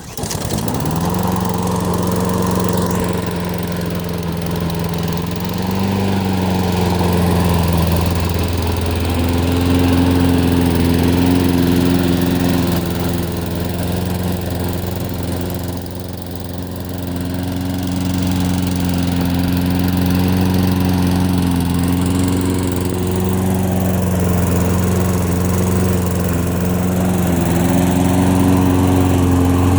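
Honda GCV160 single-cylinder engine on a Lawn-Boy push mower catching on a cold start and then running steadily at speed, its pitch wavering slightly now and then. It started on the first pull.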